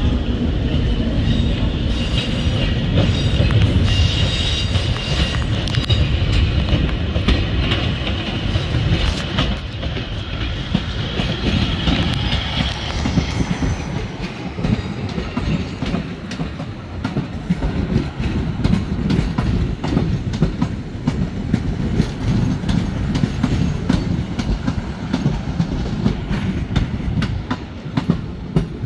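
ScotRail Class 156 Super Sprinter diesel multiple unit rolling past at low speed, its wheels clicking over points and rail joints over a low rumble. A high-pitched wheel squeal from the curved track lasts for about the first dozen seconds, then fades, leaving the clicking wheels and rumble.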